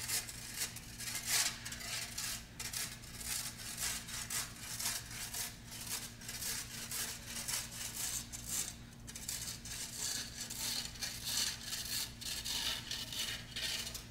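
Flat shovel blade scraping and chopping along a concrete curb edge to cut back grass, in quick, uneven, repeated strokes.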